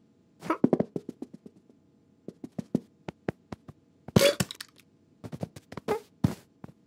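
Cartoon sound effects of a cat digging through clothes in a suitcase: quick scattered thumps and scrabbling clicks, with a louder rustling burst about four seconds in as it pops up tangled in clothing.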